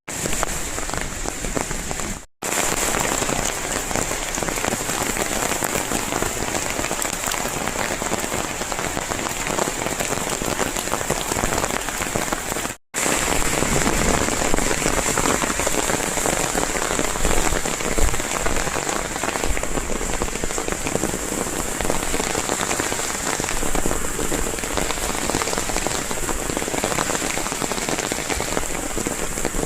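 Hailstorm: hail and rain pelting down hard on surfaces, a dense, steady patter. It drops out abruptly for a moment twice, about two seconds and about thirteen seconds in.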